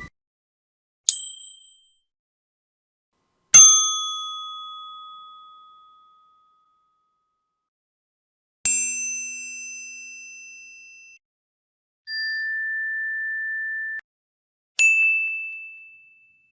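A series of separate bright 'idea' ding sound effects: a short high ding about a second in, then longer bell-like dings that ring out and fade over two to three seconds, a flat steady beep lasting about two seconds, and a last ding near the end.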